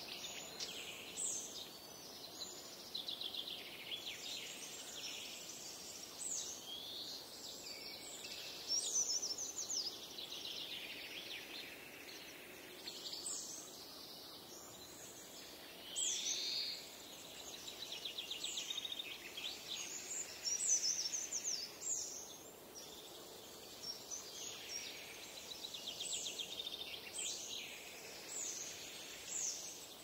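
Several songbirds singing at once: overlapping high whistled phrases, quick downward-sweeping notes and fast trills, one after another.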